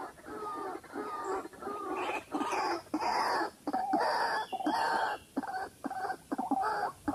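White-breasted waterhen call: a continuous run of repeated pitched notes, longer ones at first, then shorter and quicker ones, several a second, near the end.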